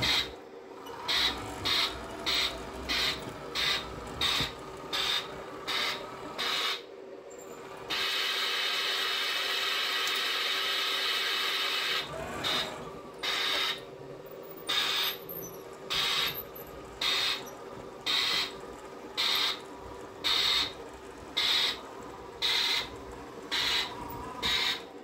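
Stock sound kit of a Bachmann G scale steam locomotive playing electronic steam chuffs through the tender speaker. The chuffs come at about two and a half a second, stop near seven seconds, give way to a steady hiss for about four seconds, then resume more slowly, a little over one a second.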